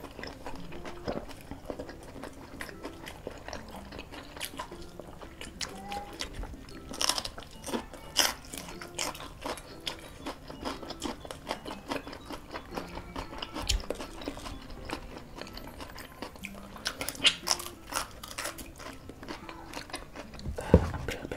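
Close-miked eating: two people chewing and biting into fried duck and rice, with wet chewing and irregular sharp crunches and mouth clicks.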